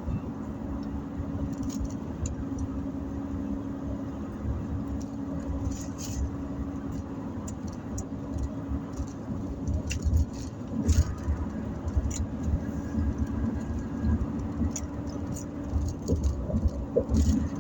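Car engine and road noise heard from inside the cabin: a steady low rumble and hum, with scattered short clicks and rustles.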